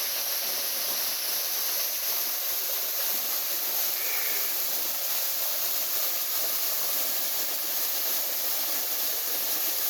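Waterfall: a steady rush of falling water, strongest in a bright hiss, with the falls running fuller than usual.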